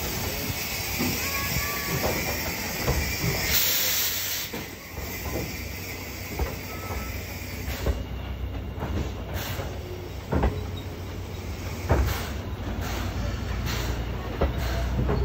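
Steam train of a tank engine and brake van moving slowly by at close range: a steady hiss of steam with a low rumble, a louder burst of steam about four seconds in, and scattered metallic knocks and clanks from the running gear and couplings.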